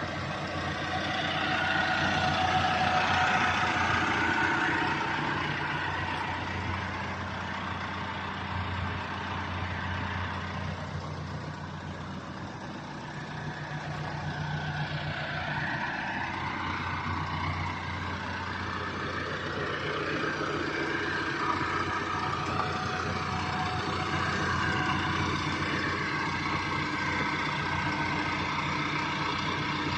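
Freshly rebuilt Mercedes-Benz OM651 four-cylinder diesel engine in a Sprinter van, running steadily with a low, even note that swells and eases slightly over time.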